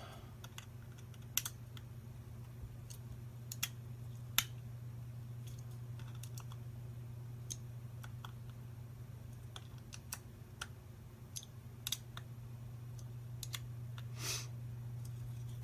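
Scattered small clicks and taps of a thin screwdriver turning screws into a 3D-printed plastic extruder part, over a steady low hum.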